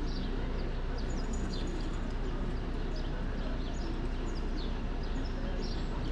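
Small birds chirping: short, quick, falling calls several times a second, over a steady low background rumble.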